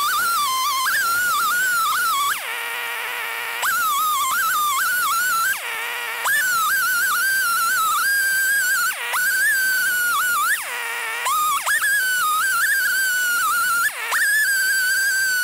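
Two-stroke chainsaw in a chainsaw mill ripping lengthwise through a cherry log, running near full throttle with its pitch wavering under load. Several times the engine note sags sharply and then climbs back as the throttle is eased off and reapplied.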